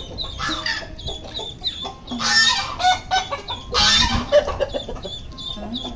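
Backyard flock calling: hens clucking and ducklings peeping steadily in short high notes, with two loud harsh calls about two and four seconds in.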